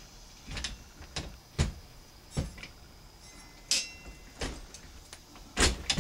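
Metallic clicks and knocks from an AR-15 rifle being handled on the bench, several sharp ones a second or so apart, the loudest about a second and a half in and near the end.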